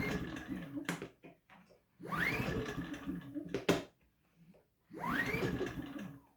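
Powerhorse 2300i inverter generator being pull-started with the choke on: three pulls on the recoil starter, each a rising whirr about a second long as the engine spins over, the first two ending in a sharp click. The engine does not catch.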